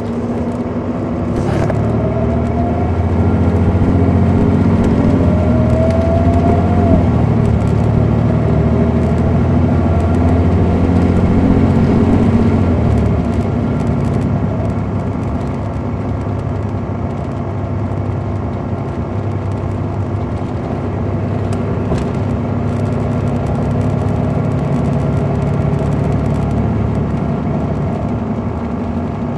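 A 2006 MCI D4500CL coach's Caterpillar C13 ACERT diesel heard from on board, working hard as the bus accelerates, with a whine that rises over the first several seconds. About thirteen seconds in the engine eases off, and the coach runs on at a steadier, lower level.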